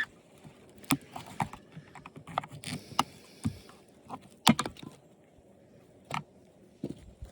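Irregular clicks and knocks of hard plastic parts being worked loose while an old TV set is taken apart by hand, with a brief scrape near three seconds and the sharpest knock about four and a half seconds in.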